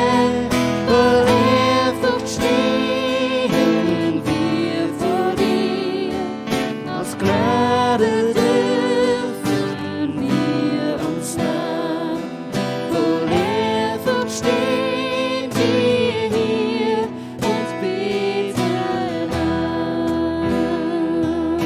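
Worship song: a voice singing with vibrato over a strummed acoustic guitar.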